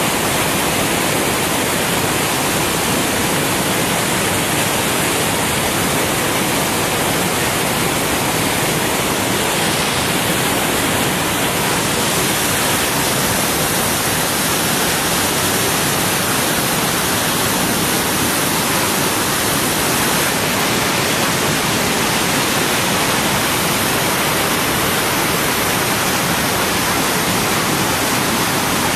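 River rapids rushing steadily over and around rocks: a loud, even wash of white water that does not change.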